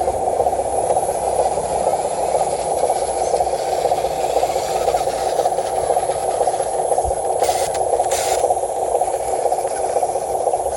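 Small electric motor and gearbox of a radio-controlled truck whirring steadily with a scraping rattle, with two brief hisses and a low knock about two-thirds of the way through.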